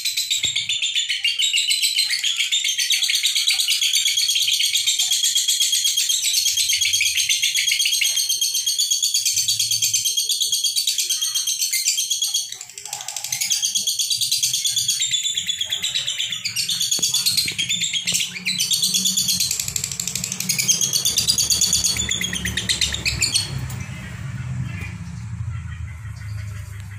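Lovebirds chattering without a break in fast, shrill chirps: the non-stop 'konslet' song that keepers play to train other lovebirds. The chatter breaks off briefly about twelve seconds in, then fades about three-quarters of the way through, leaving a low rumbling noise.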